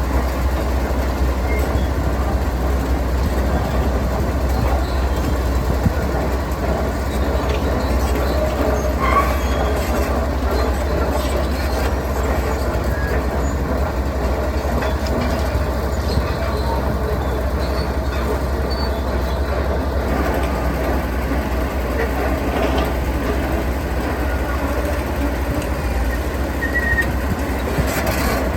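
Heavy diesel construction machinery running steadily, a deep engine rumble with rattling and a few knocks.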